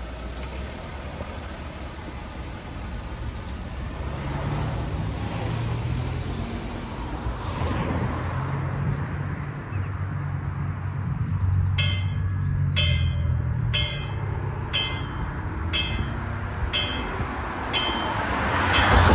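Road traffic with a vehicle engine hum growing louder. About two-thirds of the way in, the level-crossing warning bells start ringing, one sharp strike about every second. A vehicle passes close near the end.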